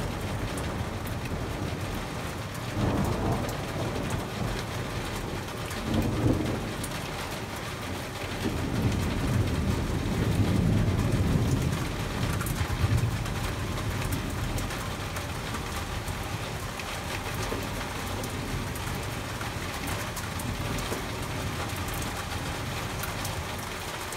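Steady rain pattering down through a thunderstorm, with thunder rumbling low several times: short rolls about three and six seconds in, and a longer one building around nine to twelve seconds.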